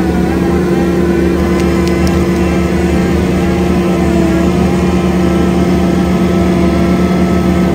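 Skid-steer's diesel engine running steadily at high revs under load, driving a hydraulic rotor-head grinding attachment, with a constant whine on top of the engine note.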